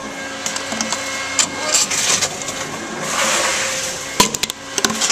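Tomra T-53 reverse vending machine running as it takes in a plastic bottle: a motor hum with clicks and rattles, a burst of hiss and clatter about three seconds in, and two sharp knocks near the end.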